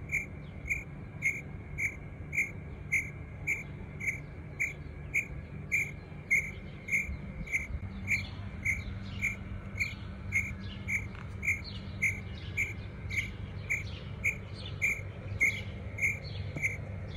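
An insect chirping in a steady rhythm, nearly two short chirps a second. From about halfway through, faint quick descending calls join it.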